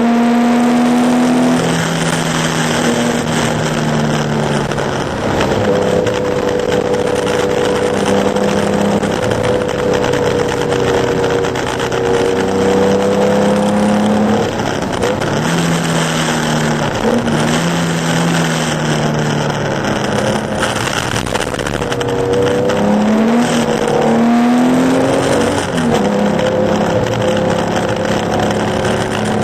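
Porsche 911 2.0's air-cooled flat-six engine running hard under racing load, its pitch dropping at gear changes and rising and falling through a stretch of shifting near the end. Under it is a steady hiss of water spray and tyre noise off a soaked track.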